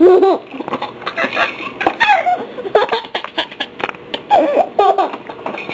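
Young children's voices squealing and giggling in short, high-pitched bursts, with a few sharp clicks from plastic baby toys.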